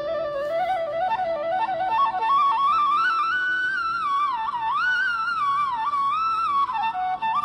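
Background instrumental music: a flute-like melody that slides and ornaments between notes, climbing over the first few seconds and then weaving up and down, over a low held note at the start.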